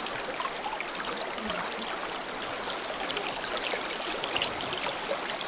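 River current flowing steadily: an even rush of moving water.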